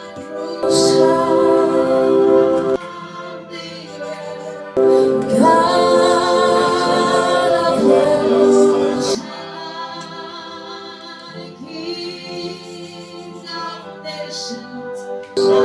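Worship music: a choir with female voices singing long held notes. The phrases swell loud about a second in and again around five seconds in, then drop quieter for several seconds before rising again near the end.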